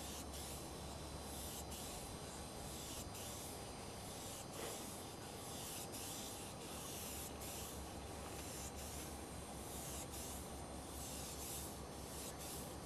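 Aerosol spray-paint can hissing in repeated bursts, some short and some longer, with brief breaks between them as paint is sprayed onto the steel side of a freight car.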